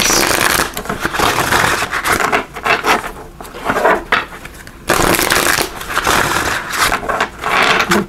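A deck of oracle cards being shuffled by hand, riffled with the halves bent together: a dense rapid flutter of cards for the first two and a half seconds, a quieter gap, then more shuffling from about five seconds in.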